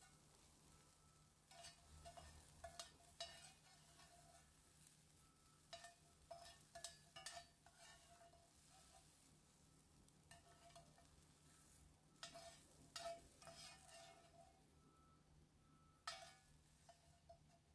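Faint, scattered scraping and clinking of a utensil against a frying pan, in short clusters with a brief metallic ring. It comes while the fried carrots and peas are being scooped out of the pan.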